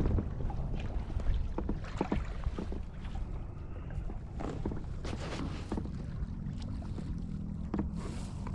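Kayak paddle strokes on lake water: irregular small splashes and drips with occasional light knocks, over a steady low rumble.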